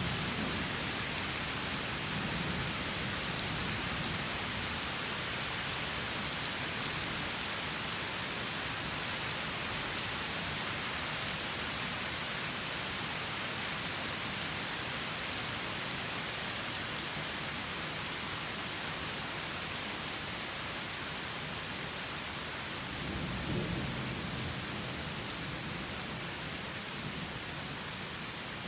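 Steady rain falling, an even hiss with scattered drop ticks. A low roll of thunder swells up about two-thirds of the way through.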